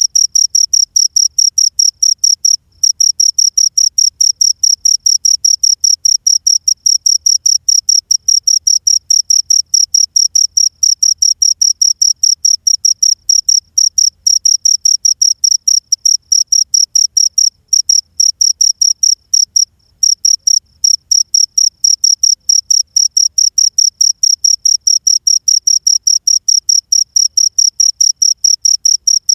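Cricket (jhingur) chirping: a loud, high, shrill tone pulsing several times a second in an even rhythm, with brief breaks about 3 seconds in and again near 20 seconds.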